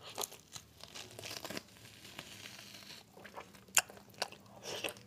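A person eating a large piece of curried mutton by hand: soft, wet chewing and biting with meat tearing from the bone, and a sharp click about four seconds in.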